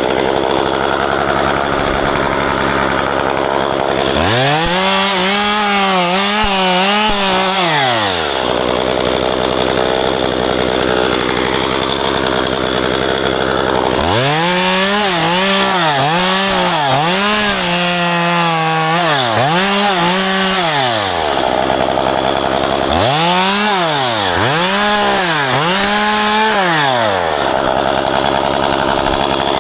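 Gas chainsaw revved up to full throttle in repeated bursts of a few seconds. Within each burst the pitch dips and recovers several times, and between bursts it falls back to idle.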